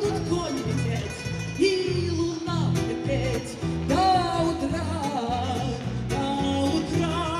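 A woman singing into a microphone with a live band: sung melody with long wavering notes over acoustic guitar and a steady pulsing bass beat.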